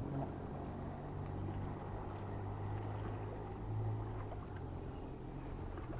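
Low, steady engine drone of a motorboat on the water, swelling slightly about four seconds in.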